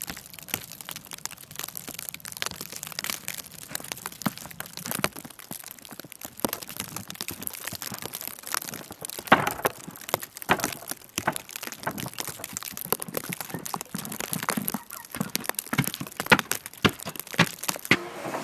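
Footsteps crunching in deep snow, with a dense, irregular crackle throughout and louder single crunches in the second half.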